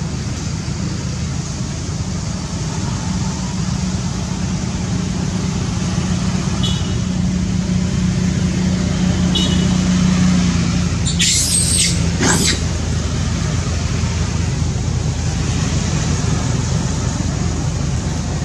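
Steady outdoor road-traffic rumble and hiss. About two-thirds of the way through, two short shrill sounds about a second apart cut across it.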